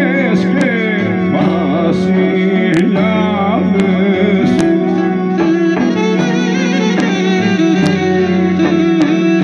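Folk dance music: a wavering singing voice and melody line over steady held notes, with sharp drum strikes scattered through.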